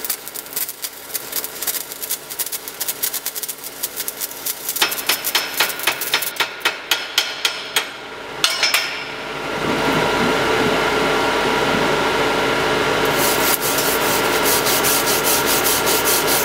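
Stick welding with an E7018 basic electrode, the arc crackling irregularly for the first few seconds. Then a chipping hammer knocks slag off the weld in a run of sharp metallic strikes, followed by steady scraping and rapid tapping as the slag is cleaned off with a wire brush and chipping hammer.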